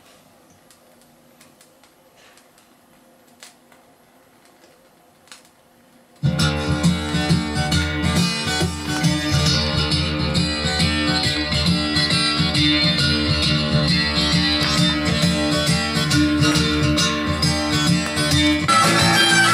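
Recorded music played loud through a Pioneer SA-5800 stereo amplifier and its speakers, starting abruptly about six seconds in after a few faint clicks over a low hum. Near the end the deep bass drops away and the sound turns brighter.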